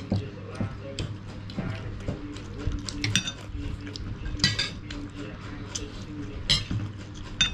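Metal spoons and forks scraping and clinking on ceramic plates and bowls while noodles are eaten, with several sharp clinks a second or two apart.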